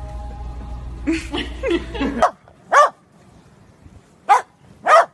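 Dog barking: a quick run of short yips, then, after the background hum cuts off, three loud sharp barks, the last two close together.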